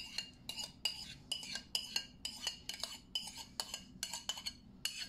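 Metal utensil scraping and tapping yogurt out of a bowl onto a plate: a quick, even run of clinks against the dish, about four a second.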